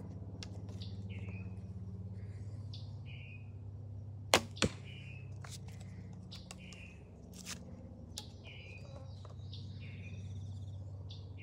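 A traditional bow shooting an arrow: a sharp snap of the string on release about four seconds in, then the thwack of the arrow striking the target a fraction of a second later. A bird chirps repeatedly over a steady low hum.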